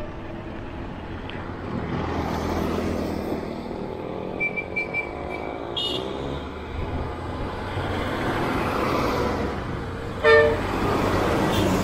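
Road traffic noise from passing vehicles, with three short high beeps at about four and a half seconds and a brief loud horn honk near the end.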